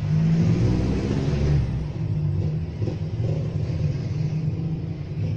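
Broadcast sound from the CRT television's speaker, heard in the room: a steady low rumble with deep, shifting tones.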